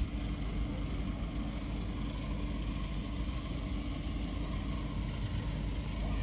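Low, steady rumble of diesel locomotive engines.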